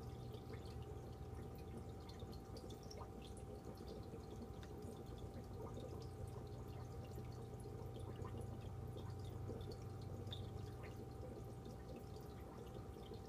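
Faint aquarium filter running: water trickling and dripping with many small scattered pops over a steady hum.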